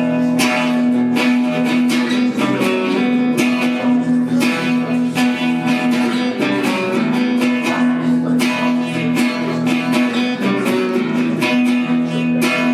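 Guitar strumming chords in a steady rhythm: the instrumental intro of a rock song played live.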